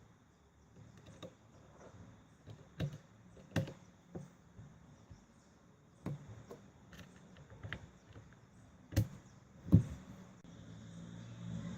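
Scattered small clicks and taps of hands working on an ASUS Eee PC 701SD netbook during a RAM upgrade, with two sharper clicks about three-quarters of the way through.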